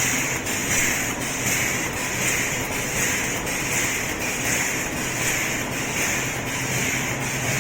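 Automatic cutlery-set packing machine running, with a hissing, whooshing cycle that repeats about every 0.7 s over a steady low hum and light clicks.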